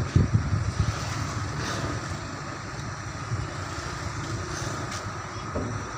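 Diesel engine of a crane running steadily while it lifts a shipping container, a low rumble that is louder in the first second.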